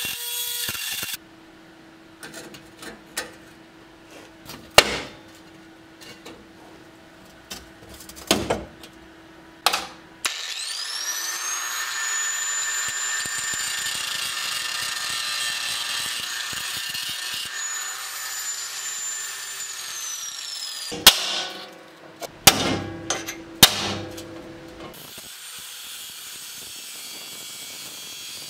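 A few sharp knocks over a faint steady hum. Then, about ten seconds in, an angle grinder spins up with a rising whine and grinds rust off the steel of an M16 Stahlhelm helmet for about ten seconds before winding down. A few more knocks follow.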